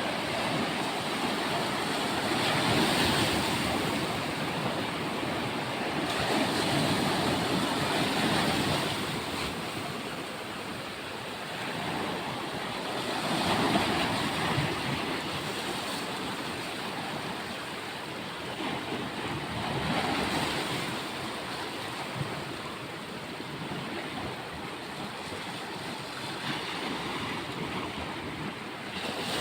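Sea waves washing onto a beach: a steady rush of surf that swells and fades every few seconds as each wave comes in.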